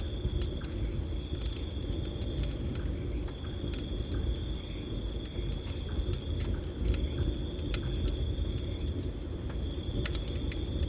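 Campfire crackling with scattered sharp pops over a low steady rumble of burning wood, under a continuous high trilling chorus of crickets.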